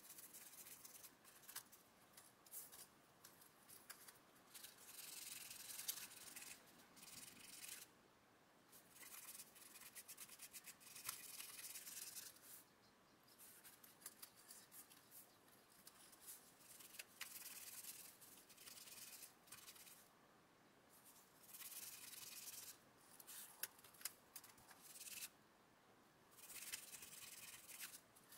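Faint scratchy rubbing of a cotton bud working metallic pigment over the links of a model tank track. It comes in stretches of a few seconds with short pauses between, and a few light clicks from the links shifting.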